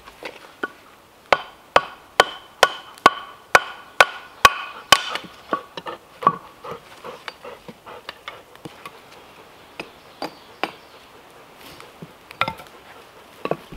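A wooden club striking the head of a hatchet driven into a piece of wood on a chopping block, splitting it. It starts with a steady run of about nine sharp, ringing knocks, roughly two a second, then goes on as lighter, scattered taps.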